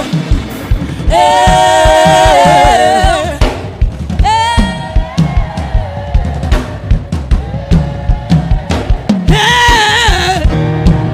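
Gospel worship music: a drum kit keeps a steady beat under a voice singing long, wavering held notes, with a rising sung phrase about four seconds in and another held phrase near the end.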